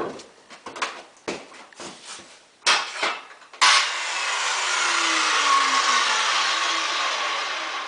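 A few knocks and clatters of handling, then about three and a half seconds in a circular saw starts up and cuts along the edge of a wooden pallet. It runs loud and steady, with its tone falling as the blade works through the wood.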